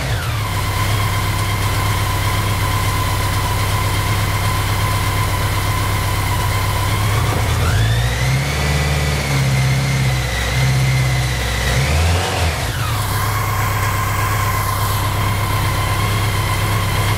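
BMW K100's four-cylinder engine idling steadily on its first run after a fuel pump replacement, revved up once about eight seconds in and held there for a few seconds before dropping back to idle.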